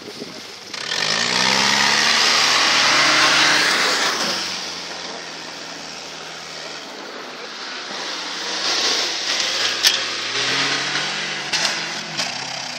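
Off-road 4x4 engines revving hard as they climb a sand hill. The first revs up about a second in with a rising note and a loud rush of noise and eases off after about four seconds. A second engine revs up in the last few seconds, with a few sharp knocks.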